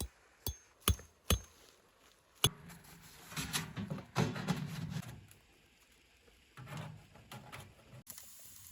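Several sharp clinks, some with a brief high ring, in the first couple of seconds, then a stretch of scraping, rustling noise.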